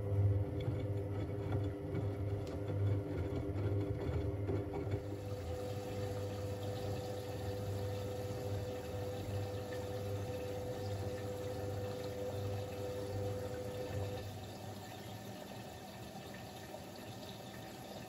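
Siemens Siwamat 6143 washing machine moving water: rushing water under a steady electrical hum. The hum stops about fourteen seconds in, and the water sound carries on more quietly.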